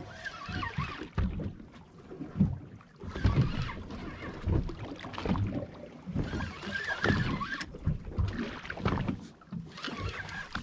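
Water sloshing and slapping against the hull of a boat drifting in offshore swells, in irregular surges.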